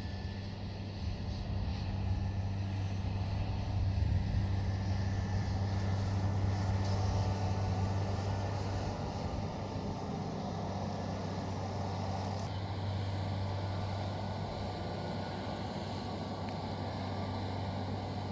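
Diesel engine of farm machinery running steadily with a low hum, swelling a little over the first few seconds and then easing slightly.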